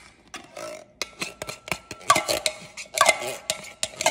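Thick, partly congealed canned coconut milk being poured out of the can, glugging and plopping in a run of wet gulps with small clicks and taps; the loudest glugs come about two and three seconds in.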